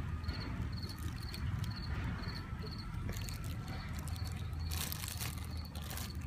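A cricket chirps steadily, about twice a second. A thin plastic bag crinkles a few times in the second half as it is handled.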